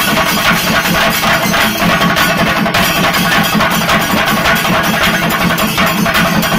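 A group of Kerala chenda drums beaten with sticks, playing together in a fast, dense, loud rhythm without a break.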